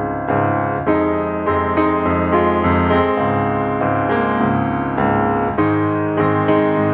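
Background piano music, new notes struck about twice a second over held chords.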